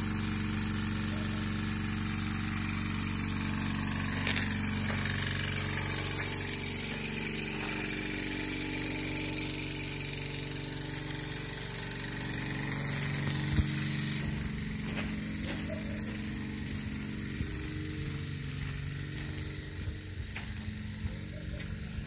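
A motor running steadily under a high hiss. About two-thirds of the way through, the low hum drops away, leaving the hiss and a few sharp clicks.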